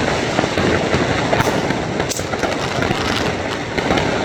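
Fireworks and firecrackers going off from all sides at once: a dense, continuous crackle of small bangs, with a couple of sharper reports about one and a half and two seconds in.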